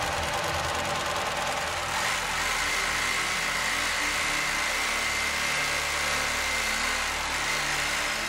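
Global PA304 P four-needle lockstitch industrial sewing machine running steadily as it stitches parachute fabric, a steady high tone joining about two seconds in.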